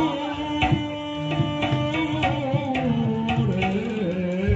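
Live jaranan ensemble music: hand-drum strokes over held melodic tones, with a melody falling in pitch about halfway through.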